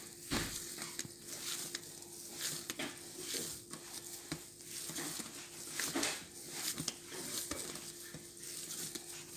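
Hands kneading and patting a soft, buttery dough on a countertop: soft, irregular pats and squishes, a few every couple of seconds, over a faint steady hum.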